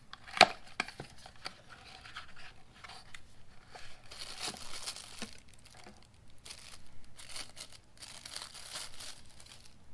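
A new pair of pliers' retail packaging being torn open and handled: crinkling and tearing in several stretches, after a single sharp click about half a second in.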